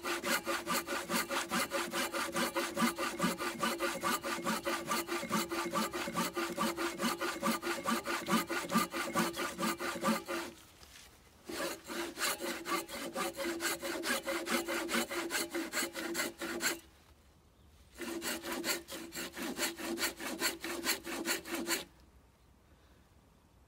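Silky BigBoy 360 folding pull saw with coarse teeth cutting through a timber beam in fast back-and-forth rasping strokes. The sawing pauses briefly twice and stops about 22 seconds in.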